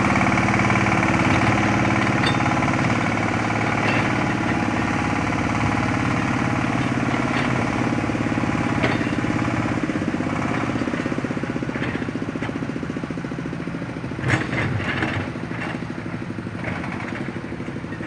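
Engine of a homemade 4x4 ledok plantation truck on a PS100 chassis, running steadily as the truck climbs over a dirt mound in a capability test, slowly fading as it moves away. A few sharp clacks come about three-quarters of the way through.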